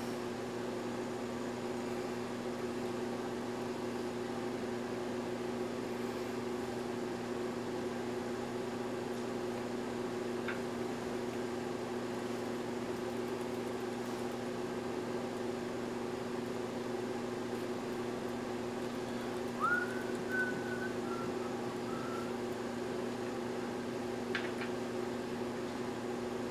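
Steady low room hum, with two faint light clicks and a brief high, whistle-like squeak about twenty seconds in.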